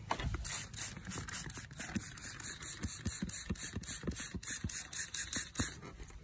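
Hand spray bottle squirting soapy water onto a patched TIG welding gas hose to check it for leaks. It gives a fast run of short hissing squirts from about a second and a half in until near the end.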